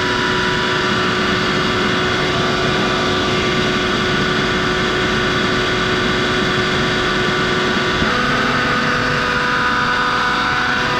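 Eaton 20 hp rotary screw air compressor running with its side covers off: a steady, loud machine noise carrying several steady whining tones. About eight seconds in, its tone shifts as one whine drops out and higher ones come in.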